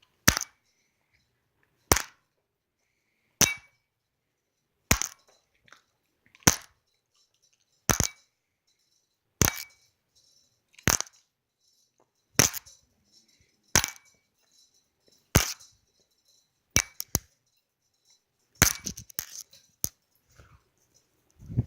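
Sharp clicks, evenly spaced about every one and a half seconds, each with a brief ringing tail. Near the end they come faster and run together.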